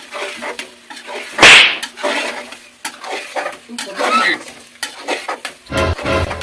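Metal ladle stirring a thick curry in a pressure cooker pot, knocking and scraping against the pot's metal sides, with one loud clatter about a second and a half in.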